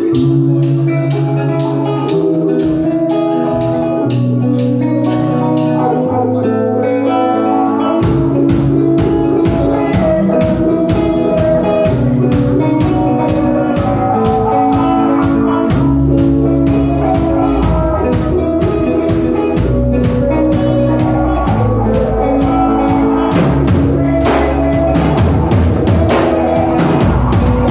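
Live rock band playing: electric guitars, bass guitar and drum kit. For about the first eight seconds the guitars hold sparse notes over a steady ticking beat, then bass and full drums come in and the band plays on together.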